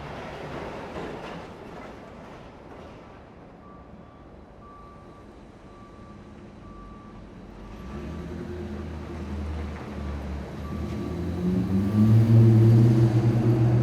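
City traffic with a faint repeating beep in the middle. About eight seconds in, a heavy vehicle's low engine drone grows louder and passes close, loudest near the end.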